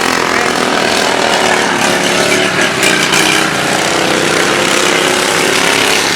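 Several racing lawn mowers running together at race speed, their engines' steady pitches overlapping.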